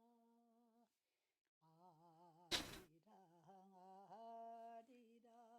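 Near silence, with a faint wavering hummed tune and one brief soft noise about two and a half seconds in.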